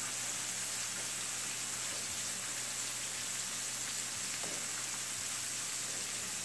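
Pieces of butterfish frying in hot oil in a pan, a steady sizzle.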